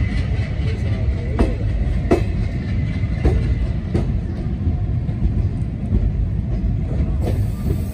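Passenger train coach rolling slowly out of a station, a steady low rumble with wheels clacking over rail joints every second or so.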